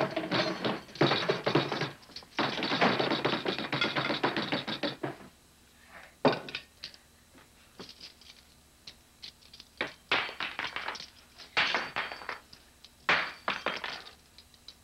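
Dishes and cutlery clattering with knocks and thuds from a scuffle at a dining table. There is a dense run of clatter for the first five seconds, then scattered clicks, then more bursts of knocking from about ten seconds in.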